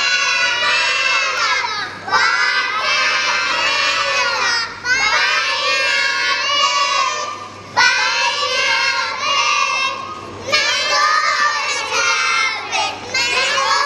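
A group of young children singing a song together, line by line in phrases of two to three seconds with short breaks between them.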